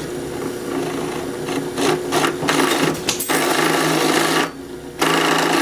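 A power tool's motor running steadily while shaping a small workpiece, with rough grinding or sanding noise that comes and goes as the piece is pressed against it. The sound drops away for about half a second some four and a half seconds in, then resumes.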